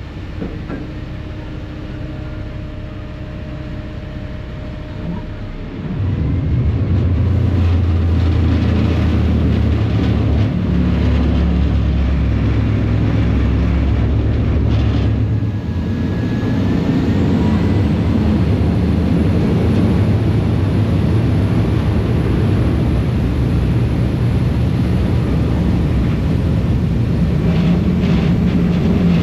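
A ferry's diesel engines running with a steady low rumble. The rumble becomes much louder about six seconds in as the ferry powers away from the wharf, then stays at that level.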